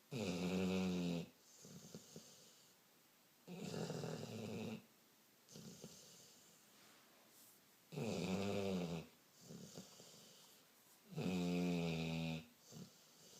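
Snoring: four long, loud snores roughly every three and a half seconds, with softer breathing between them.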